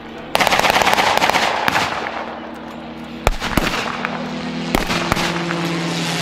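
A rapid machine-gun burst lasting about a second and a half, then single gunshots about a second and a half apart, over the steady drone of a running engine.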